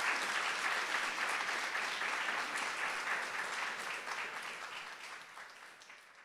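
Audience applauding: dense, even clapping that fades away over the last two or three seconds.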